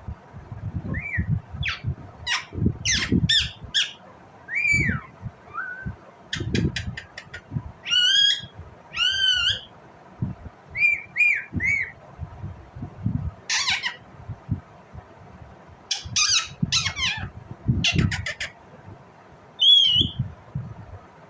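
Indian ringneck parakeet calling repeatedly: short, shrill squawks and arching chirps, some in quick runs of clipped notes, with the loudest squawks about two thirds of the way in and near the end. Low bumps sound underneath the calls.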